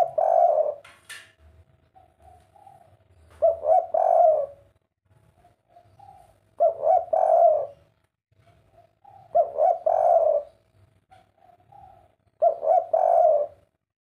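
Caged spotted dove cooing: a loud phrase of several notes repeated about every three seconds, five times, with softer single coos between the phrases. This is the three-note song type that Indonesian keepers call "kuk 3".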